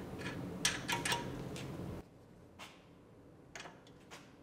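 A few light metallic clicks and clinks from fitting a wrench to the nylon-insert lock nut on an outer tie rod end stud, over a low steady hum. The hum cuts off abruptly about halfway, leaving only a few faint ticks.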